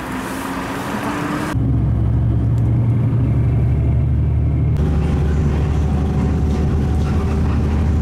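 Street traffic at a bus stop, then, about a second and a half in, a steady low engine rumble heard from inside a moving city bus.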